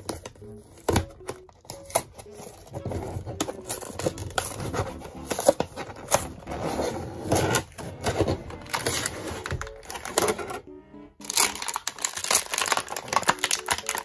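Clear plastic blister packaging of a toy figure pack being picked at, peeled off its card and crumpled: irregular crinkling and crackling, with background music playing underneath.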